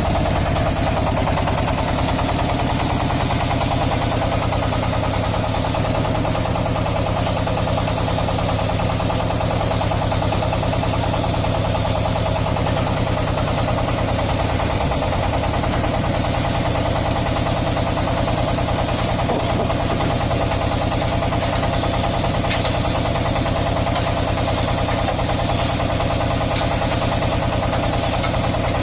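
15.2 kW diesel engine of a QT4-30 hydraulic block machine running steadily, driving the machine's hydraulic pump, with a few faint clicks in the second half.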